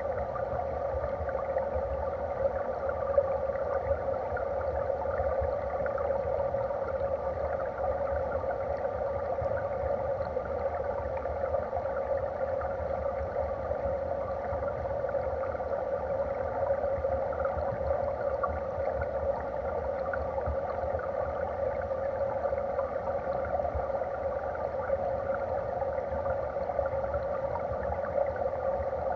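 Steady underwater rush of a flowing mountain stream heard through a submerged camera: an even, muffled hiss with a low rumble beneath.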